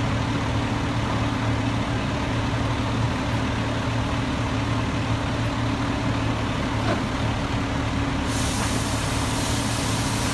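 Steady low drone of a fire engine's diesel engine running. About eight seconds in a high hiss starts and carries on.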